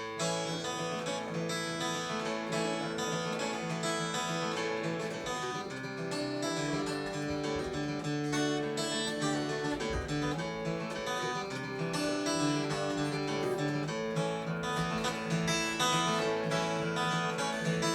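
Acoustic guitar playing the instrumental intro of a country-folk song, strummed and picked chords at a steady, moderate tempo.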